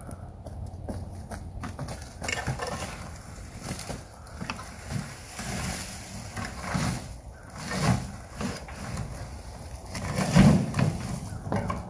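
A wheelbarrow of dry brush and leaf litter being pushed and then tipped out onto a brush pile: irregular crunching and crackling of dry sticks and leaves, with clatter from the wheelbarrow, loudest about ten seconds in as the load is dumped.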